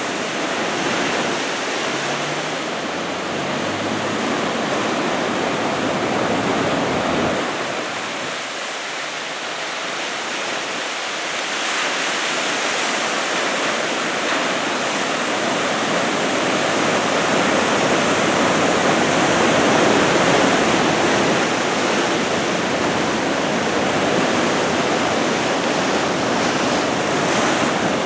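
Ocean surf raised by approaching typhoon swell, waves breaking and washing in as a continuous rushing noise. It eases off about a third of the way through, then swells louder again.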